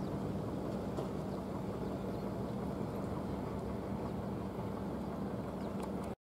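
Steady low outdoor rumble of harbour ambience with a faint constant hum, ending abruptly about six seconds in.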